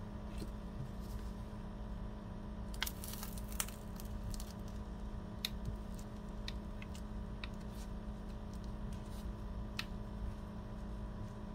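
Foil sample sachets crinkling and clicking as they are handled and clamped in a flat-iron hair straightener to heat-seal them: scattered light clicks with a denser crackle about three seconds in, over a steady low hum.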